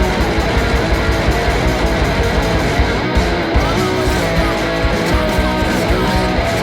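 Rock music: electric guitars and drums playing loud and steady at a fast beat.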